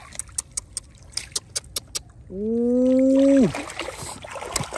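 Koi thrashing in a little water in a woven bamboo basket: a quick run of sharp slaps and splashes. About two seconds in, a person calls out a long, held 'oooh' for about a second, the loudest sound here.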